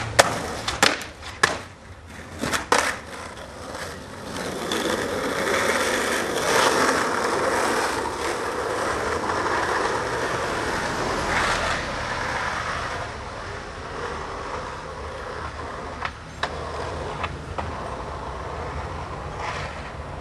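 Skateboard on a street: several sharp clacks of the board in the first few seconds, then the wheels rolling on asphalt for about ten seconds, loudest in the middle. A few single clacks come near the end.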